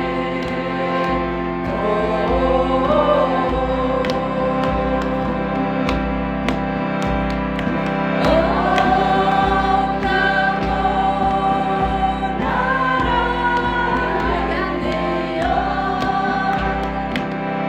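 Background music: voices singing long, held, gliding notes over a steady low drone and a regular low beat.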